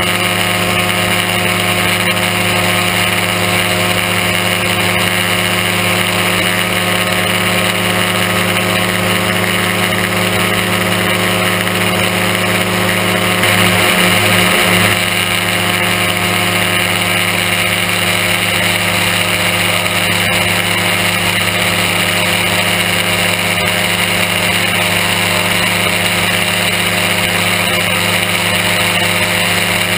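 Engine and propeller of an Aerochute powered-parachute microlight running steadily in cruising flight. The sound rises slightly and wavers for about a second and a half near the middle.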